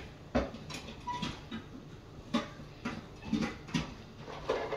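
Scattered light clicks and knocks of kitchen things being handled, as a strainer is fetched.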